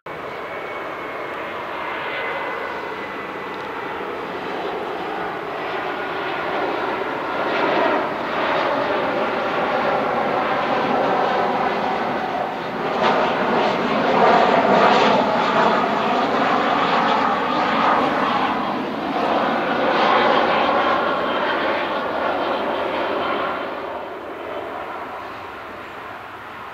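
Boeing 737-400's CFM56-3 turbofan engines on final approach at landing thrust: a jet roar with a whine that grows louder as the airliner passes close by, loudest about halfway through, then fades near the end.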